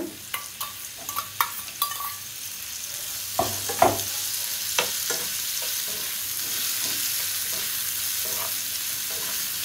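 Chopped onions sizzling in oil in a nonstick frying pan as zucchini pulp is scraped in from a steel bowl and stirred with a steel spoon. Sharp clicks and scrapes of the spoon against bowl and pan through the first five seconds, the loudest about four seconds in, then a steady sizzle.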